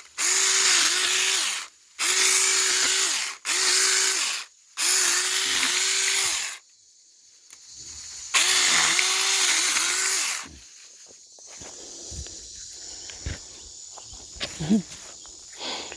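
A 4-inch cordless electric mini chainsaw runs in five short bursts of a few seconds each, its whine sagging briefly now and then as the chain bites into wood. It stops about ten seconds in, leaving only faint clicks and rustling.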